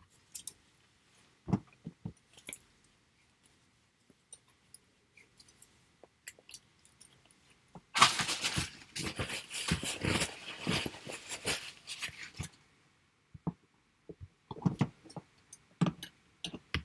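Crackling, rustling handling noise close to the microphone for about four seconds from midway, with scattered clicks and knocks before and after.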